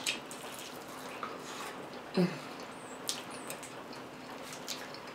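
Close-miked chewing of crunchy food: irregular crisp crunches and mouth clicks over a faint steady hum. A short low vocal sound comes about two seconds in.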